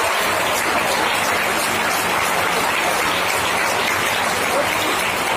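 Audience applause: steady, dense clapping.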